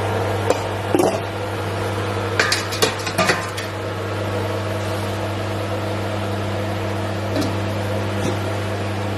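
Metal pots and a steamer being handled on the stove: a few clinks and knocks, with a quick run of them a couple of seconds in. A steady electric hum from a running kitchen appliance goes on underneath.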